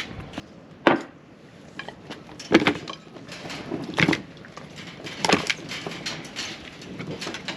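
Irregular knocks and clatter of objects being handled, with a sharp knock about a second in and others roughly every second or so.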